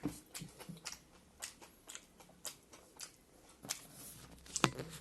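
Close-up mouth sounds of a person chewing a mouthful of rice meal: irregular wet smacks and small clicks, with one sharper click near the end.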